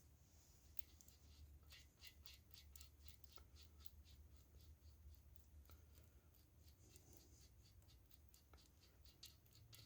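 Near silence: faint, irregular scratching and light ticks of small hand work over a steady low hum.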